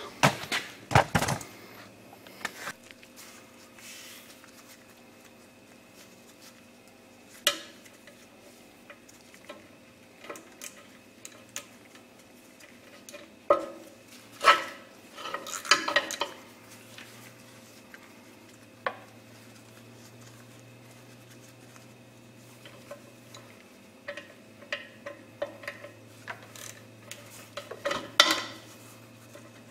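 Scattered metallic clinks and knocks of a wrench on the wheel-cylinder bolts behind a drum-brake backing plate. They come in short bursts with quiet gaps between.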